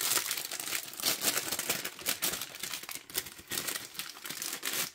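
Plastic pie wrapper crinkling and crackling irregularly as hands pull it open.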